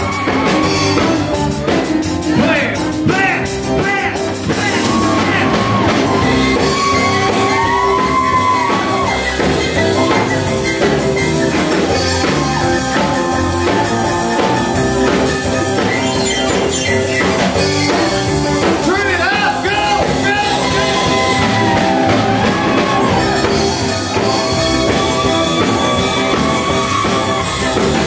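Live rock-and-roll band playing an instrumental stretch of the song, with drums, keyboard and a lead line that bends up and down in pitch again and again.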